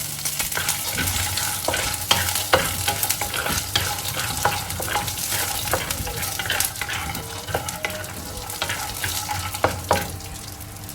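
Peanuts frying in a little oil in a pan, sizzling as they are stirred, with frequent sharp clicks and scrapes of the nuts and utensil against the pan.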